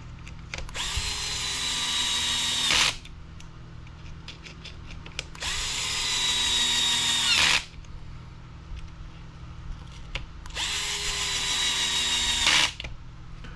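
DeWalt cordless screwdriver driving three small screws in turn, each run about two seconds of motor whine that slows as the screw seats. Its clutch is set to 10, a light torque setting.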